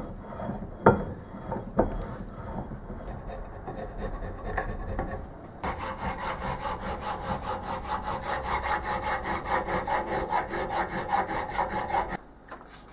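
A flat hand file rasping across the top of a cast metal headstock block held in a bench vise, in quick, even strokes, several a second. The filing starts about halfway in and stops abruptly near the end. Before it come a few knocks and light scraping as the block is handled.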